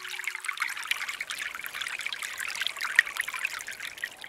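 Small stream trickling and babbling over rocks, a steady spattering water sound. A last sustained music chord fades out just under a second in.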